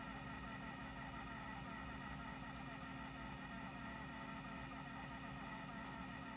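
Steady low hum of a Fadal VMC5020A CNC vertical machining center standing idle, not cutting, with one constant tone held through it.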